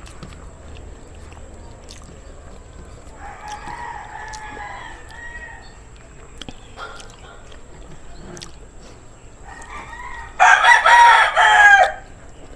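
A rooster crows loudly near the end, one call of about a second and a half. A fainter crow comes earlier, about three seconds in.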